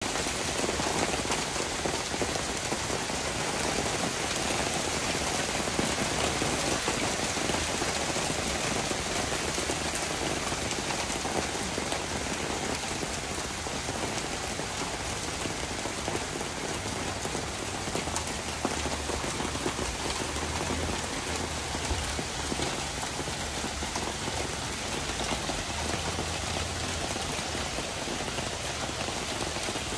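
Small hailstones falling steadily onto turf and paving: a dense, even patter of countless tiny impacts.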